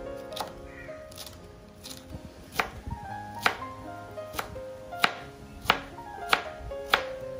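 Kitchen knife chopping vegetables on a cutting board: a series of sharp, evenly spaced strokes about every two-thirds of a second, starting about two and a half seconds in, fainter taps before that.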